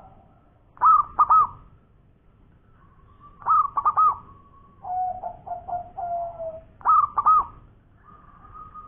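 Zebra dove (perkutut) cooing in repeated phrases: three loud bursts of quick, clipped notes, with a lower rolling trill between the second and third and a faint drawn-out note near the end.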